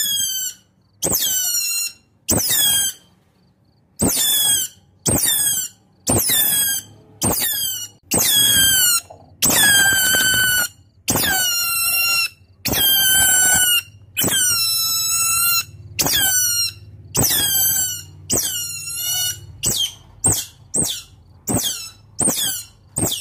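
Otter calls: a run of high-pitched squeaky squeals, each falling in pitch, repeated about once a second, with shorter, quicker calls near the end. These are calls of an otter calling to its companions, played as a lure to draw wild otters in.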